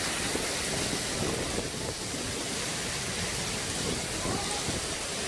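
Heavy typhoon rain pouring down, a steady, dense hiss.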